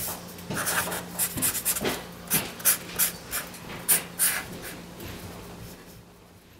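Felt-tip marker drawing on paper: a quick, irregular run of short scratchy strokes that thins out and fades over the last couple of seconds, with a faint steady hum underneath.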